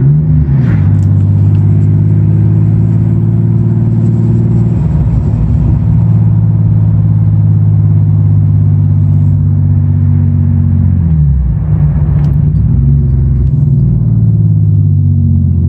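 Turbocharged BMW E36 engine running under way, heard from inside the cabin. The engine note holds steady for long stretches, then drops and climbs again just after the start and again about eleven seconds in.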